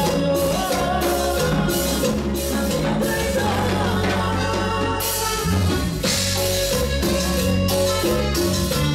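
Live band playing an upbeat Latin song on drum kit, electric keyboard and electric guitar, with a woman singing lead.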